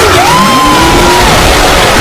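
Loud music mixed with a crowd yelling and whooping, with voices sliding up and down in pitch over a dense wash of noise.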